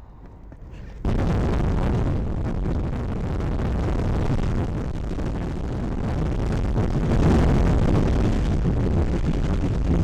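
Strong wind and road noise in a moving car: a loud, steady rushing with a heavy low rumble that starts abruptly about a second in.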